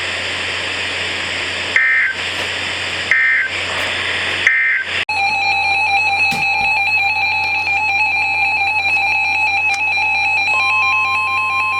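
NOAA Weather Radio alert signalling: three short data-burst squawks of the EAS/SAME end-of-message code over radio hiss. About five seconds in, this cuts to a loud, steady electronic alert tone, and a second, higher steady tone joins near the end.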